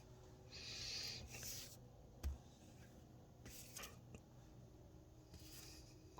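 A paintbrush's bristles swishing over cedar wood in a few separate strokes, with one soft knock about two seconds in.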